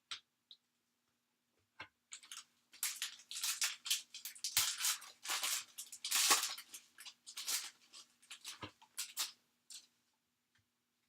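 Wrapper of a pack of basketball trading cards being torn open and crinkled, a run of crackling for several seconds.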